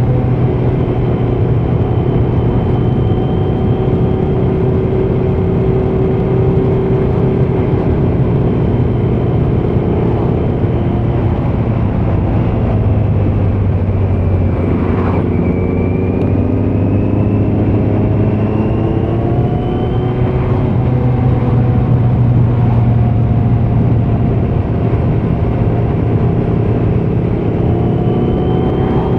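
A 2018 Kawasaki Z900's 948 cc inline-four runs through a Leo Vince muffler with the dB killer removed while the bike is ridden. The engine note holds fairly steady, easing down and rising back in pitch a few times, with a brief dip and pick-up about halfway through.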